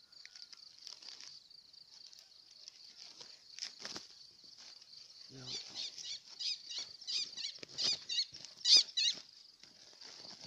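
Cloth bag rustling as it is handled, over a steady high insect drone. About halfway through, a run of loud, warbling, high-pitched calls sets in, loudest near the end.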